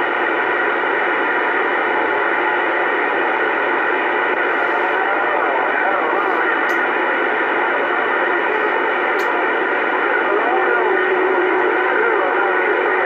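CB radio receiving on AM channel 28: a steady rush of band noise with faint, garbled distant voices buried in it, and a steady low carrier whistle joining in near the end.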